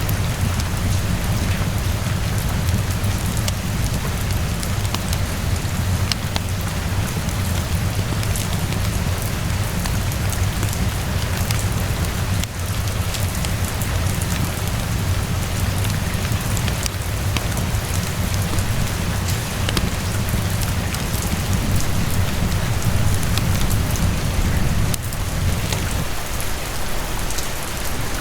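Steady rain falling on hard surfaces, an even hiss with scattered sharp ticks of drops, over a continuous low rumble that eases about 25 seconds in.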